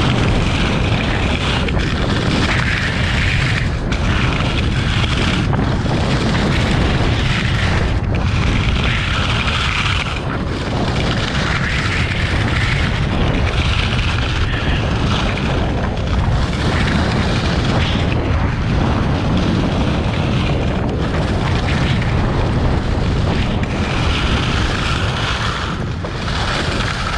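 Heavy wind rush buffeting an action camera's microphone during a fast ski descent, with the hiss of skis scraping over packed snow that swells and fades every couple of seconds as the turns come.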